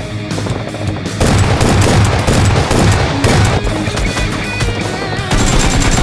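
Rapid bursts of machine-gun fire over loud action music. The gunfire sets in about a second in.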